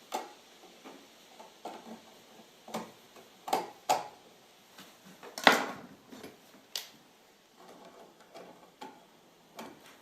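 Scattered clicks, taps and knocks of small hardware being handled as wall switches are worked into an electrical box, with one louder knock about halfway through.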